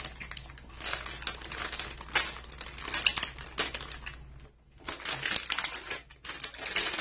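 Plastic candy bags crinkling as they are picked up and shuffled by hand, in irregular rustles with a short lull about four and a half seconds in.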